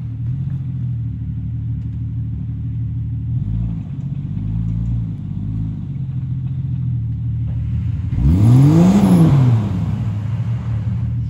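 Vehicle engines running low during a stuck-vehicle recovery pull. About eight seconds in, one engine revs up hard and back down over about two seconds under load, with a loud rushing noise.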